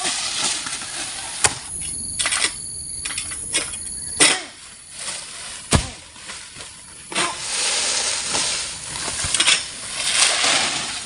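A long-pole oil palm sickle (egrek) cutting at a palm crown: several sharp cracks and knocks, then a long rustling swish of palm fronds near the end.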